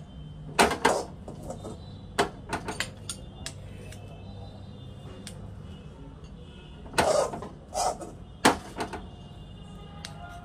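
Kitchen utensils clinking and scraping against a pan and plate as hot halwa is served out: a run of sharp knocks and short scrapes, with the loudest clusters soon after the start and about seven seconds in, over a steady low hum.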